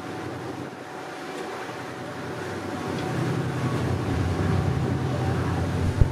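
Patrol ship underway: steady rush of wind and churning wake water, with a low engine rumble growing louder from about halfway through and a single sharp knock near the end.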